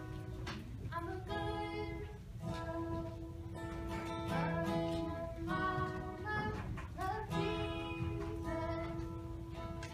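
Acoustic guitar played live, notes struck and left to ring.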